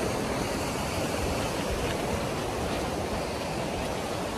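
Steady rushing of a fast-flowing river, a constant hiss with a low rumble underneath.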